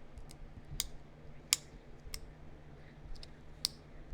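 Pressure flaking a heat-treated chert point: a handful of sharp, irregular clicks as small flakes snap off under the flaker, the loudest about a second and a half in.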